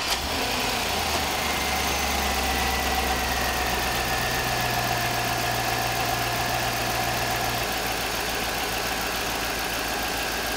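2003 Chevrolet Suburban's V8 engine idling steadily just after starting, seen from the open engine bay. A faint whine eases slowly lower as the idle settles.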